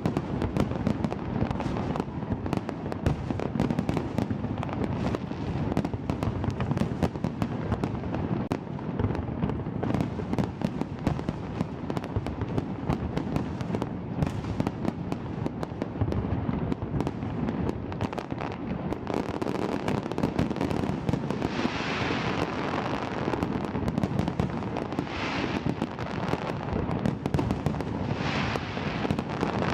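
Fireworks display: a dense, continuous barrage of bangs and booms over a rolling low rumble, with bursts of crackling that grow brighter from about two-thirds of the way through.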